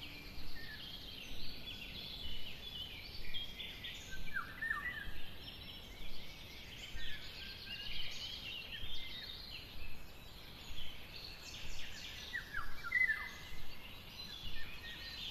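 Birds-chirping ambience playing in a virtual reality scene: small birds twittering in short, high, overlapping calls, with a burst of chirps about once a second over a faint steady hiss.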